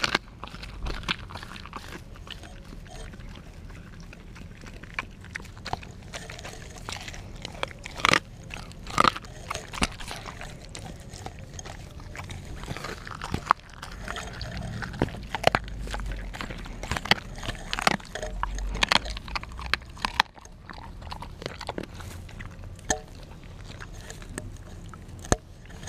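Australian Kelpie crunching and chewing raw meaty bones right at the microphone, in irregular sharp crunches.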